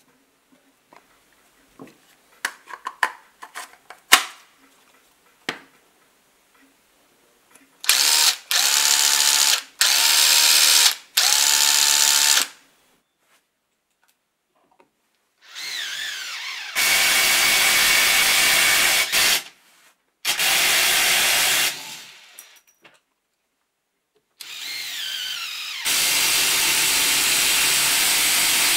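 Small clicks of a hand screwdriver tightening the housing screws of a Makita TD021D cordless impact driver, then the driver itself running. First come three short free-running bursts of motor whine. Then three longer runs drive screws into a wooden board, each rising in pitch before the loud, even hammering of the impact mechanism sets in; the driver runs freely now that its stuck head bearing has been replaced and regreased.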